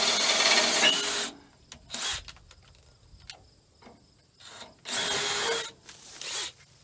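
Hand-held power drill boring into the steel of a combine header's bracket mount. It runs for about a second and stops, then comes back in short bursts, with a longer run about five seconds in.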